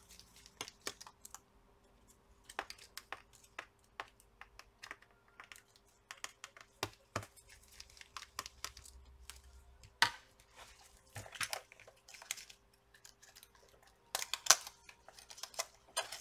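Scattered small clicks and taps of plastic and metal laptop parts handled with gloved hands while the touchpad is freed from the palmrest. There is a sharper click about ten seconds in and a quick run of clicks near the end.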